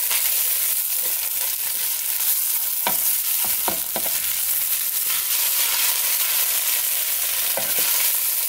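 Oil and browned meat drippings sizzling in a hot square nonstick pan while a wooden spatula scrapes and stirs the fond off the bottom.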